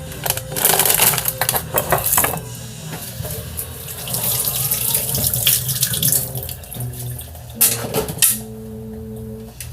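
Water running from a tap into a sink, with a few clattering knocks.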